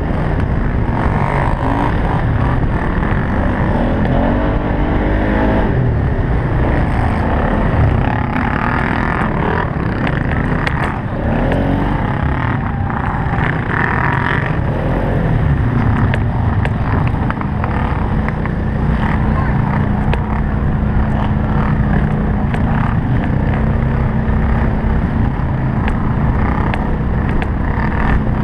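Polaris Sportsman 570 utility quad's single-cylinder engine running hard under race load, heard close from a camera mounted on the quad. Its revs rise and fall through the first half, then hold steady for several seconds past the middle.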